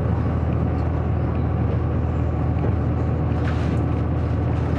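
Taiwan Railways DR3000 diesel railcar on the move, heard inside the passenger car: a steady low diesel engine drone with rumble from the wheels and rails.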